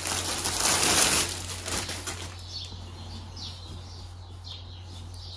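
Clear plastic packaging bag crinkling and rustling as it is pulled open and a folded garment is taken out. The rustle is loudest over the first two seconds, then gives way to softer handling of the cloth.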